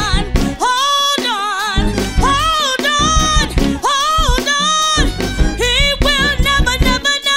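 Live gospel music: a woman soloist sings long, wavering notes with vibrato over a band with bass and drums.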